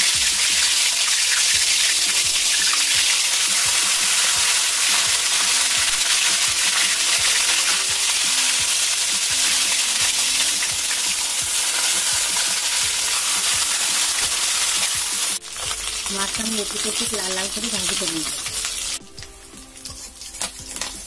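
Snakehead fish pieces, coated in salt and turmeric, sizzling loudly in hot vegetable oil in an iron karahi. About 15 seconds in the sizzle drops off suddenly, and it is quieter near the end while a spatula turns the fish in the oil.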